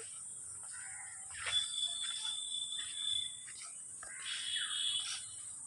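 Faint outdoor ambience: birds chirping now and then over a steady high-pitched insect drone.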